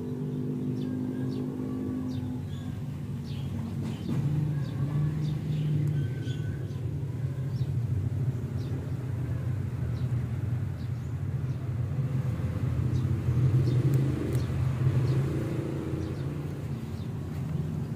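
A steady low rumble, with short high bird chirps scattered through it.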